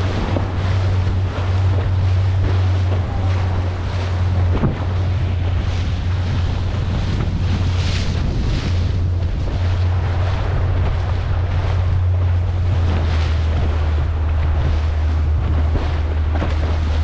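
Powerboat on open water: wind buffeting the microphone and water washing against the hull, over a steady low drone from the boat's engine.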